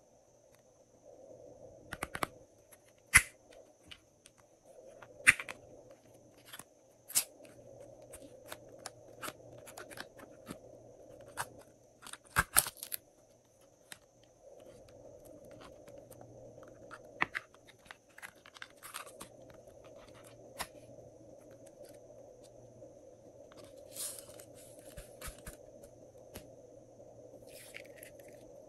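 Glossy slime being worked and mixed by hand, giving sharp irregular clicks, pops and crackles. There is a cluster of quick clicks about twelve seconds in and denser crackling near the end.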